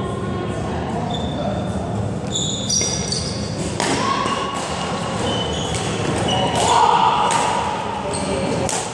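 Badminton rally: sharp racket hits on the shuttlecock about once a second, with short high squeaks of court shoes on the wooden floor, footfalls and the echo of a large sports hall.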